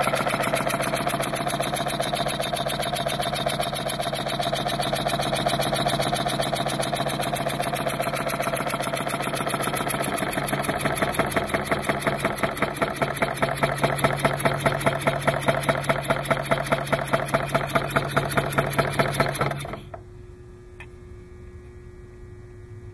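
Homemade single-acting pneumatic opposed-piston engine running on compressed air with a fast, even beat, which grows more distinct about halfway through. It stops suddenly about 20 seconds in, leaving a faint steady hum.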